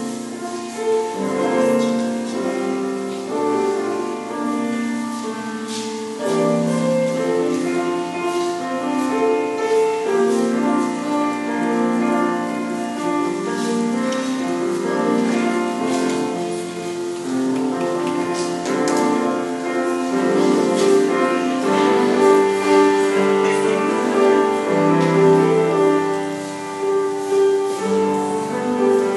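Slow instrumental music: sustained chords under a melody line, with new notes entering about every second.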